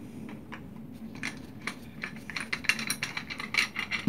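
Small metal clicks and taps of a screwdriver and router parts being handled as a Katsu router's plunge base is unscrewed and taken apart. The clicks come more often in the second half, over a faint steady low hum.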